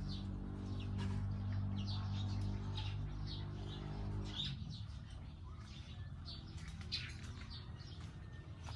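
Small birds chirping in quick, repeated short calls. Under them a steady low mechanical hum runs for the first four and a half seconds, then stops.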